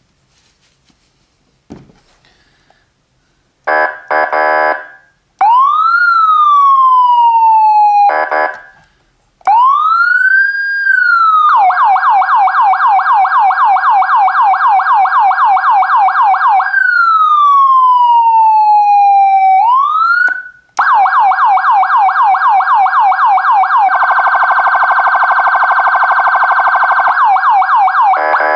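Federal Signal SM4000 electronic siren at its low volume setting, cycling through its tones: a short horn blast, slow wail sweeps that rise and fall, a rapid yelp warble, then a faster pulse warble, with further short horn blasts between them and near the end.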